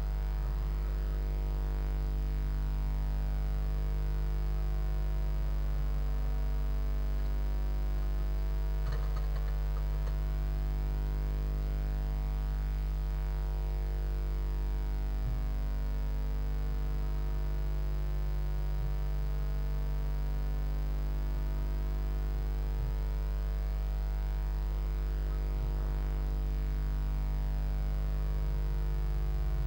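Steady electrical mains hum on a nest-box camera's sound, low and unchanging, with a faint scratching about nine seconds in.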